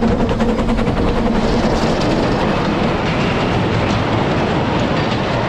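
Ffestiniog Railway gravity train of unpowered narrow-gauge slate wagons coasting past, steel wheels rattling and clattering steadily over the rail joints.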